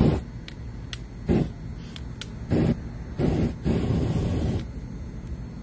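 Aerosol spray can fired through a lighter flame as an improvised torch: short hissing bursts of burning spray, the last and longest running about a second and a half, with sharp lighter clicks between them.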